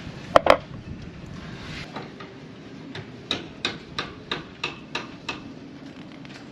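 Hand tools clicking and tapping while working on a marine engine's forward oil seal: a sharp double click, then a run of about seven even ticks, roughly three a second.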